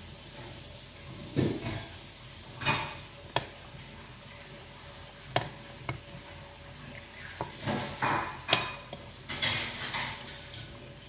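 Metal fork clinking and scraping on a ceramic plate while eating, in irregular short strikes that come more thickly in the second half.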